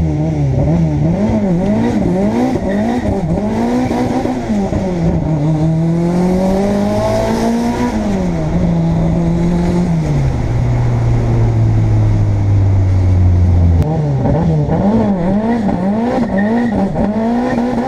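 Turbocharged Toyota 4A-GE 20-valve four-cylinder engine, heard from inside the cabin. It is revved up and down in quick blips, then pulls up in pitch. Around the middle it drops to a lower steady note and holds there, then goes back to quick up-and-down revs near the end.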